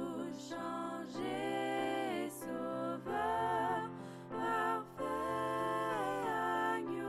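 Slow, gentle background music: a wavering melody in short phrases over a steady held low note.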